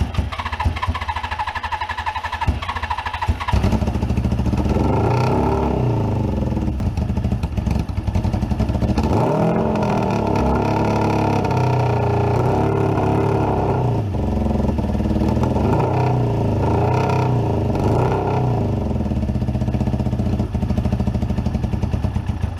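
Suzuki GS550 air-cooled inline-four cranking, catching about three and a half seconds in and running on carb cleaner spray with the revs rising and falling, then cutting out abruptly at the end. It will not keep running on its own: the engine is not drawing petrol from the carbs, a suspected fuel starvation.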